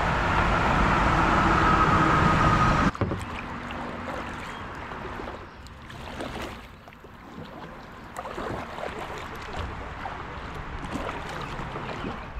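River water rushing past a kayak, loud and even, cutting off suddenly about three seconds in. Then quieter water sounds with light splashes and drips from kayak paddles.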